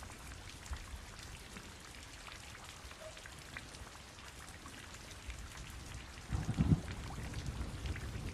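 Rain falling steadily, individual drops ticking, with a brief low rumble about six seconds in.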